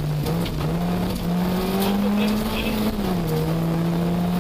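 Car engine heard from inside the cabin, pulling steadily, its pitch climbing slowly and then dropping back about three seconds in, with a few sharp ticks.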